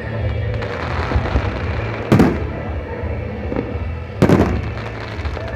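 Fireworks shells bursting overhead: two loud booms about two seconds apart, each followed by a rolling echo, over a continuous rumble of further bursts.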